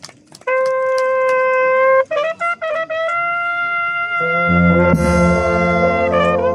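Balkan brass band starting a tune: a solo trumpet opens with a long held note, a few short notes and a second, higher held note, then about four seconds in the tubas and horns come in underneath. A drum and cymbal stroke lands about a second after the band enters.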